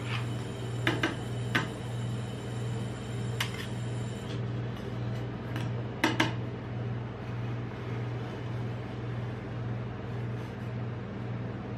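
Metal spatula knocking and clicking against the steel cold plate of a rolled-ice-cream griddle as the frozen sheet is cut into strips: a few sharp knocks in the first six seconds, two close pairs about a second in and about six seconds in. A steady low hum runs underneath, and the later part holds only the hum while the strip is rolled up.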